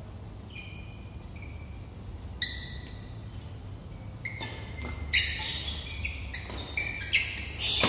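Badminton shoe soles squeaking on the hard court floor during a doubles rally: short, high squeaks, coming faster and louder in the second half. A few sharp knocks, racket hits on the shuttlecock, stand out about two and a half and five seconds in.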